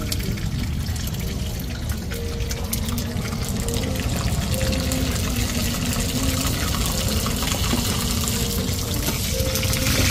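Hot oil sizzling and crackling as a seafood batter is poured into small round pans and fried. A steady hiss that grows a little louder near the end as the batter spreads and browns.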